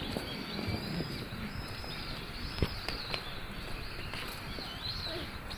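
Small birds chirping in short wavering high notes over a steady outdoor background hiss, with one sharp click about two and a half seconds in.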